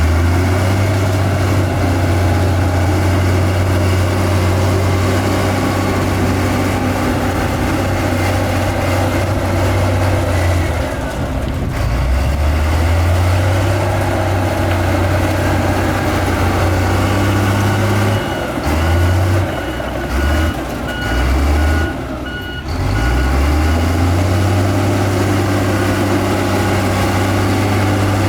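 Heavy diesel earthmoving machinery running hard, a deep steady engine note that dips and surges a few times. A reversing beeper sounds repeatedly for a few seconds about two-thirds of the way in.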